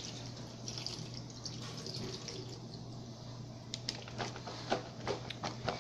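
Water running and splashing into a kitchen sink, with a few short clicks and knocks near the end.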